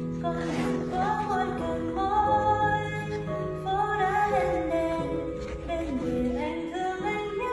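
Background music with a sung melody over sustained accompaniment.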